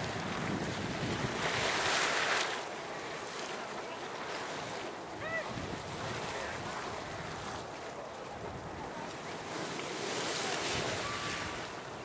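Waterfall Geyser erupting: a steady rush of splashing, surging hot water, mixed with wind buffeting the microphone. The noise swells louder about two seconds in and again near the end, and a brief chirp sounds about five seconds in.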